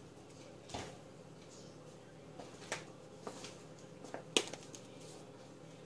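Faint scattered clicks and light knocks over a low steady hum, the sharpest knock about four and a half seconds in.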